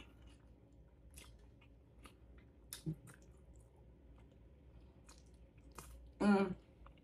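A person chewing food, with soft wet mouth smacks and small clicks. There is a slightly louder smack just before three seconds in, and a brief voiced sound about six seconds in.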